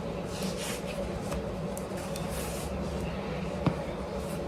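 Soft rubbing and brushing of hair being handled, faint over a steady low hum, with one small click near the end.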